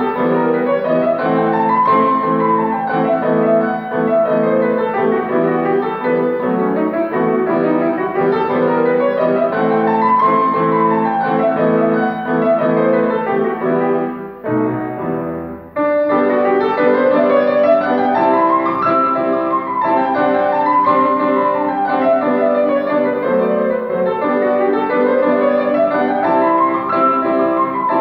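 Grand piano played solo in a classical piece: rippling figures that sweep up and down over held lower notes, repeating every few seconds. About halfway through, the playing thins briefly to a few low notes, then resumes at full strength.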